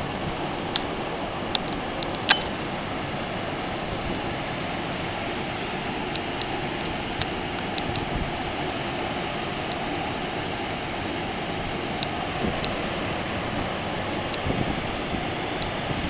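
An Evapco cooling tower and the fans of a Trane heat pump running: a steady rush of moving air with a faint, constant high tone. Scattered sharp ticks sound over it, the loudest a little over two seconds in.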